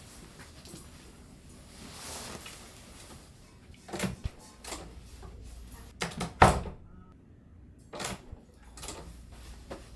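Handling knocks and clunks in a small room: a handful of short sharp thumps, the loudest about six and a half seconds in.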